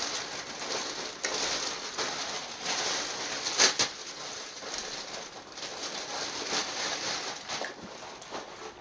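Rustling and crinkling of a fast-food takeout bag as it is rummaged through and food is pulled out, with scattered sharper crackles, the loudest about three and a half seconds in.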